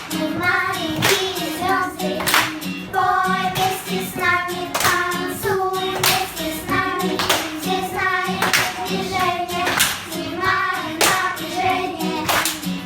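Children singing a song over musical accompaniment, with sharp hand claps repeating steadily on the beat.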